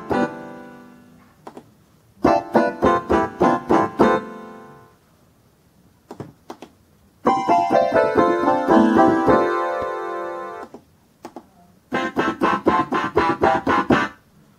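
Concertmate-1000 electronic keyboard demonstrating its preset tones, mostly harpsichord voices: four short phrases of quick plucked-sounding notes, each a couple of seconds long with pauses between, the third held longer and fading away. Short clicks sound in the pauses between phrases.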